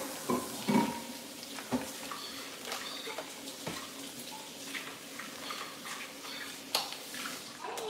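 Paper wrapper of a stick of butter rustling and crinkling as it is peeled off by hand, with a few small clicks and knocks, over a steady hiss.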